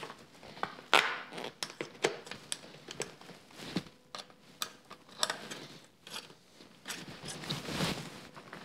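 Plastic handguard flag and its Allen key bolts being handled and fitted to a motorcycle handlebar: scattered light clicks, taps and scrapes at irregular intervals.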